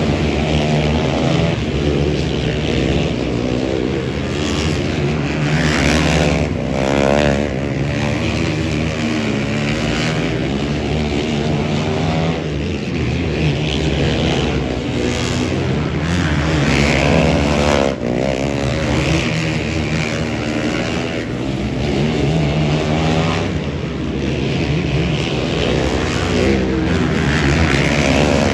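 Several motorcycle engines racing, repeatedly revving up and down as they pass and overlap.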